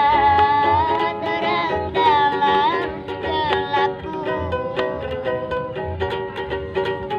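Ukulele strummed in a steady rhythm under a young voice singing long, wavering held notes; the singing drops away about four seconds in, leaving the strumming alone.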